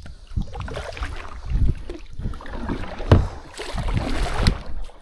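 Irregular knocks and bumps on a kayak's hull and gear while a hooked peacock bass is being fought from it. The loudest knock comes about three seconds in, followed by a short rushing noise.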